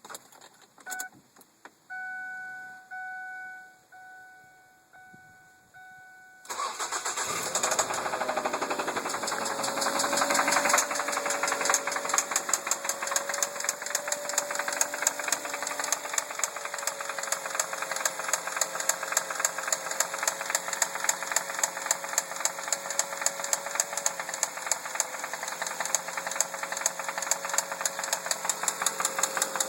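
A couple of clicks and a chime beeping about once a second, then a 2003 Ford Focus engine cranks and starts about six seconds in, revs briefly and settles into an idle with a fast, steady knocking rattle whose cause the owner does not know.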